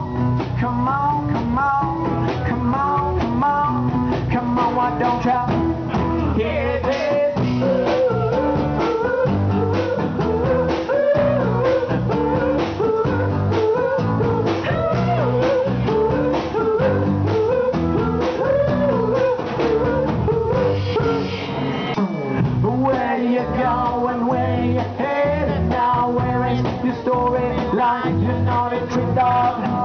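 A band playing a blues-rock song live in an acoustic set: guitar and a sung lead vocal over a steady drum beat.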